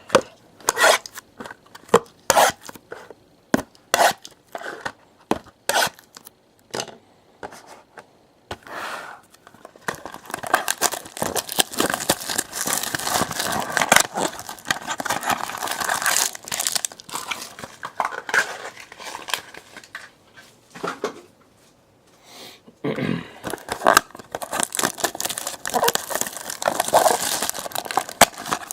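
A 2017 Absolute Racing trading-card box being opened by hand: first a string of sharp clicks and snaps, then a long run of crinkling and tearing as the wrappers are torn open, with a brief pause before more crinkling near the end.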